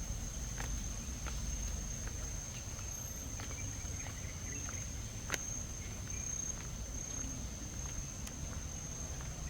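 Insects droning with one steady high-pitched tone that does not change, over a low rumble, with scattered small clicks and one sharp click about five seconds in.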